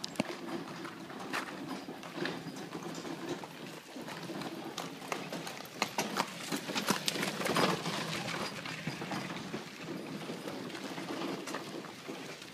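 Horse's hooves clip-clopping on a dirt road as a horse pulls a wooden cart past at a walk. The hoof clicks grow louder to a peak about halfway through, then ease off as the cart goes by.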